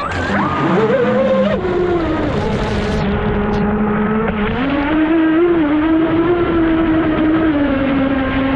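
Brushless electric motor of a radio-controlled speed boat whining under throttle, its pitch jumping up at the start, dropping about a second and a half in, then climbing again and holding as the boat runs at speed.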